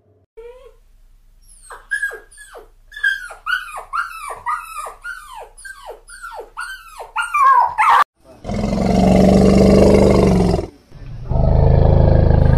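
A French bulldog puppy gives a quick run of high yapping barks, each dropping in pitch, about two a second. An Asian elephant then makes two long, loud, low calls, the first a little past the middle and the second near the end.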